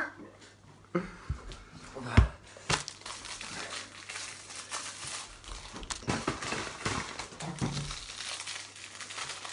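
Irregular crinkling and rustling of something being handled, with scattered sharp clicks and a louder knock about two seconds in.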